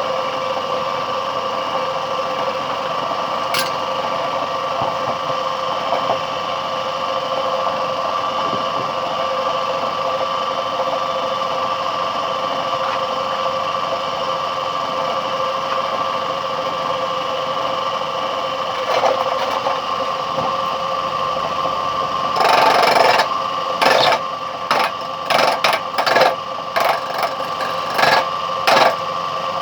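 Motor of a homemade wood lathe running with a steady hum, just switched on. About three-quarters of the way through, a run of short, irregular rough bursts starts over the hum.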